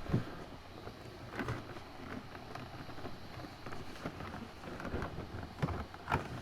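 Handling noise from packaging: irregular knocks, clicks and rustling as a box is worked open to reach the card inside.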